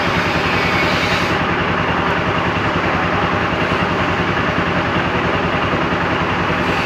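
A heavy engine idling steadily with an even low pulse, under the hiss of heavy rain.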